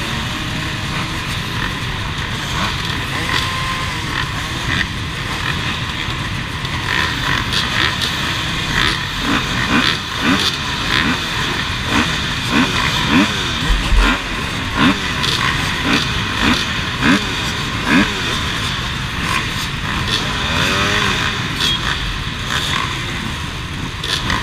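Many enduro dirt bike engines running together at idle, with an engine blipped in short rising revs about once a second through the middle stretch.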